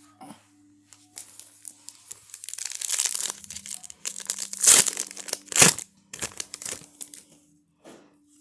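Foil wrapper of a Topps Opening Day baseball card pack being torn open and crinkled: a run of crackling rips, with two sharp loud snaps about halfway through.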